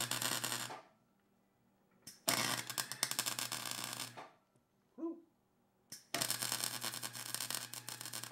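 MIG welder arc crackling on steel in short welds: one ends just under a second in, then two more of about two seconds each, with a low hum under each one.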